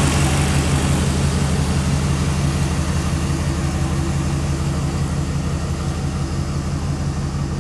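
Hummer H1 engine idling steadily while it warms up after a cold start.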